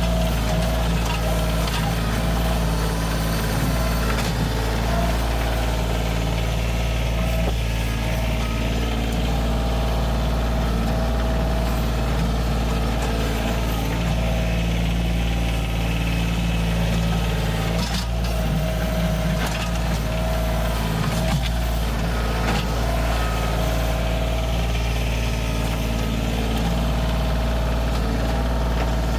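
Compact tractor's diesel engine running steadily while the front loader digs with a stump bucket. A few knocks and scrapes of the bucket against dirt and rock come about two-thirds of the way through.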